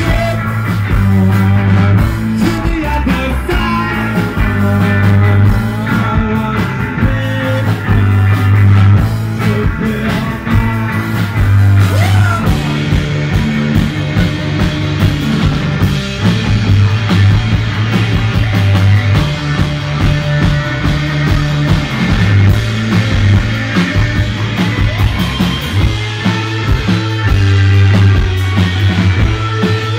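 Live rock band playing loud: electric guitar over a drum kit keeping a steady beat.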